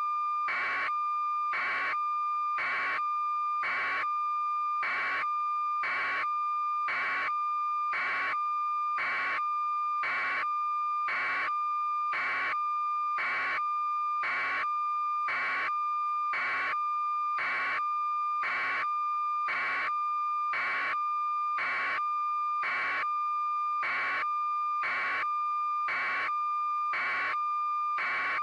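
Steady electronic beeping, about three beeps every two seconds, over a continuous steady tone.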